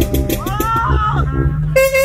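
Marching-band brass horns jamming: short notes and a bending phrase, then a loud held note comes in about three-quarters of the way through, over a low rumble.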